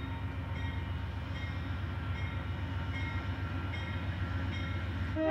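Amtrak train pulling out behind a GE P42 diesel locomotive: a steady low rumble, with faint dings about every three-quarters of a second. Near the end the locomotive's K5LA chime horn starts to blow.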